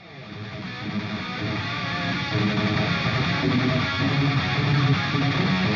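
Background music led by guitar, fading in over the first second or so.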